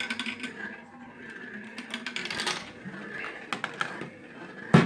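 Marbles rolling and clicking through a marble run, in irregular clusters of rattling clicks, with one louder knock near the end.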